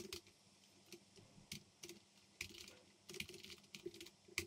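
Typing on a computer keyboard, faint: irregular keystrokes with a quicker run of taps a little after three seconds in and one sharper click near the end.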